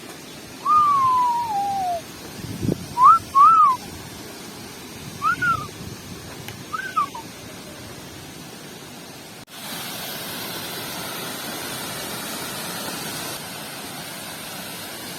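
A person whistling: one long falling slide, then several short up-and-down whistled notes, over the steady rush of a waterfall. About two-thirds of the way through the whistling stops and the rush of falling water turns louder and fuller.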